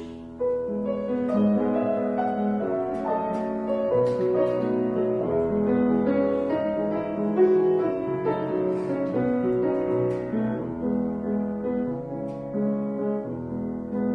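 Piano playing a slow classical passage, the accompaniment to a children's choir.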